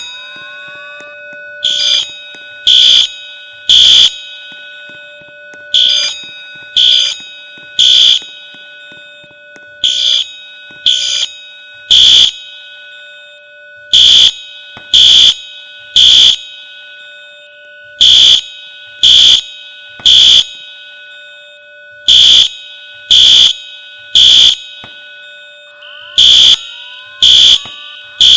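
Fire alarm sounding loud beeps in groups of three, about a second apart, with each group repeating every four seconds: the temporal-three evacuation pattern. A faint steady tone runs underneath.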